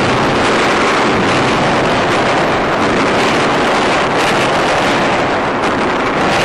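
Loud, steady rushing roar of jet aircraft overhead, unbroken, with no separate blasts standing out.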